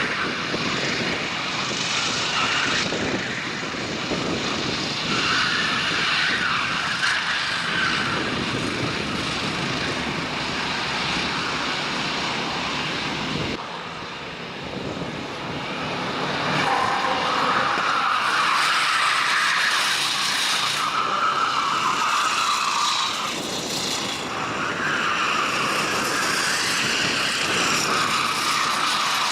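Racing kart engines running hard, their pitch rising and falling as the karts accelerate and lift off through corners. There is a sudden break about halfway through, after which the engines rise again.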